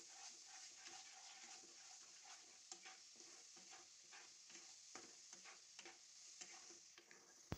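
Faint scraping strokes of a wooden spatula stirring thick masala paste around a nonstick kadhai, roughly two strokes a second, with a light sizzle as the paste fries.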